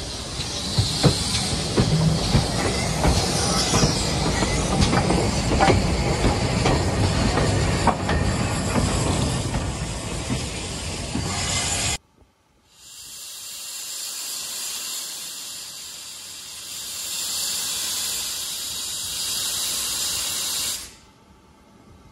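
Stanier Mogul steam locomotive 13268 hissing steam, with many sharp knocks and clanks through the first dozen seconds. After a sudden break, a steadier, higher steam hiss follows and cuts off about a second before the end.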